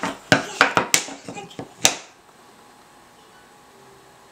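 Wooden peg-puzzle pieces clacking against the wooden puzzle board: a quick run of sharp knocks in the first two seconds, then quiet room tone.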